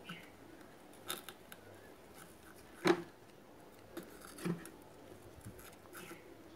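A handful of light clicks and taps from small metal hand tools working on a circuit board while ICs are being desoldered, the sharpest one about three seconds in.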